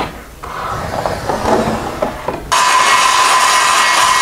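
Light scraping and handling sounds, then about two and a half seconds in a DeWalt circular saw starts abruptly and runs steadily, a high whine over the hiss of the blade cutting sheet stock.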